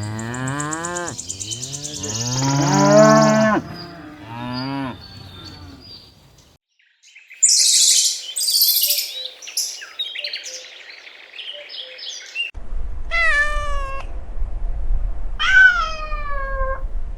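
A cow mooing, several low calls over the first few seconds; then a stretch of high-pitched chirping; then a cat meowing twice, each meow falling in pitch.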